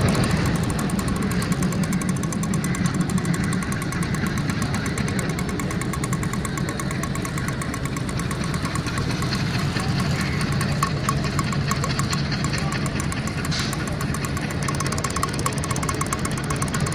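A vehicle engine running steadily with a rapid, even pulse.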